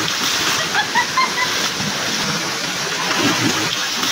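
Steady rush of flowing water, with a few faint short chirps about a second in.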